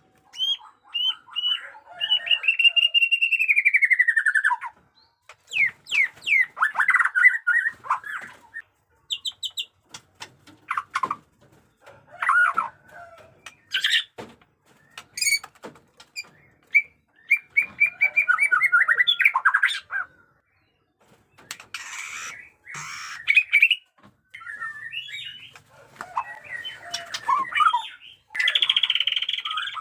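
White-rumped shama singing a long, varied song: clear whistled notes, a long slurred whistle that falls in pitch about two seconds in, and quick clicking and harsh rasping notes mixed among the phrases.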